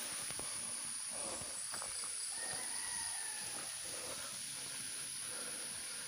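Steady high-pitched insect chorus from the forest over a soft outdoor hiss.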